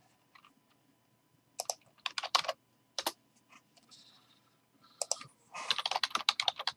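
Typing on a computer keyboard: a few keystrokes about one and a half seconds in, a single click at three seconds, then a fast run of keystrokes near the end.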